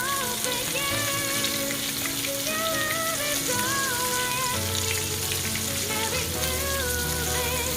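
Fish fillet frying in hot oil in a pan, a steady sizzle, with background music playing over it.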